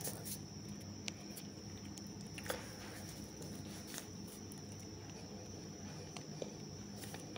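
Quiet room tone with a steady low electrical hum and a faint high whine, broken by a few faint, scattered clicks.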